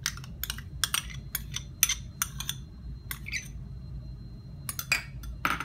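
Metal spoon scraping and knocking against a bowl as thick yogurt is scooped out, a series of short sharp scrapes and clicks in clusters, with a pause of about a second past the middle. A steady low hum runs underneath.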